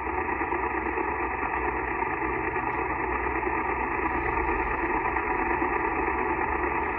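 Steady static hiss from a Yaesu FT-891 transceiver's speaker on the 10-metre band in SSB mode: band noise with no station transmitting, cut off sharply above about 3 kHz by the receiver's narrow SSB filter.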